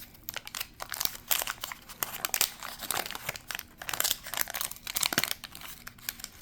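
Wrapper of a pack of baseball cards crinkling and tearing as it is opened by hand, in many irregular sharp crackles.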